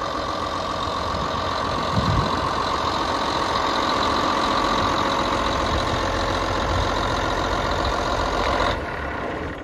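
Caterpillar Challenger 75D rubber-track tractor's diesel engine running steadily, with a steady whine over the engine note. Near the end the sound abruptly turns quieter and duller.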